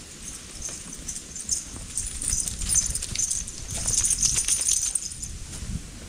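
Footsteps crunching through dry fallen leaves and gravel, a dense crackle that is loudest in the middle, over wind rumbling on the microphone.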